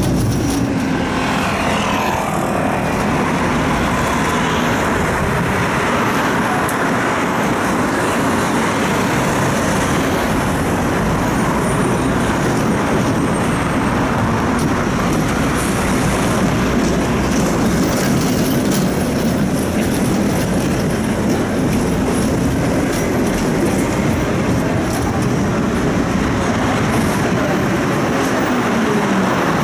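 Electric tram running along its tracks, heard from aboard: a steady rumble of wheels on rail and running gear, with the motor's whine gliding down in pitch near the end as the tram slows for a stop.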